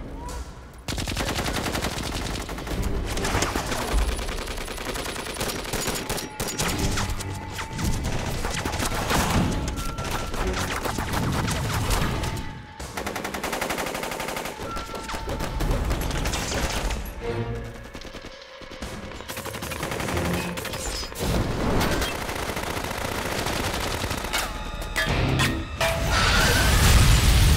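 Film action soundtrack: repeated bursts of automatic rifle fire mixed with background score music. It grows louder near the end, with a heavy low rumble.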